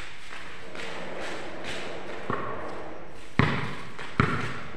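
Basketball bouncing on a concrete court: a faint thud a little over two seconds in, then two sharper, louder thuds less than a second apart near the end.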